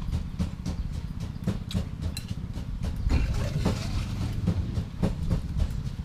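A steady low rumble under scattered light clicks of chopsticks and spoon against a ceramic noodle bowl, with a rustle of fresh herb leaves being torn and dropped into the bowl about halfway through.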